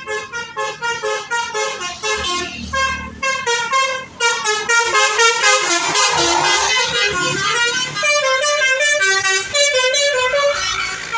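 Bus's Basuri 'telolet' musical air horn playing a quick tune of short, pitched notes, several a second.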